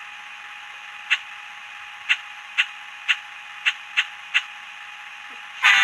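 Seven short, sharp clicks at uneven intervals over a steady hiss. Near the end a loud horn blast from the model locomotive's Digitrax sound decoder starts.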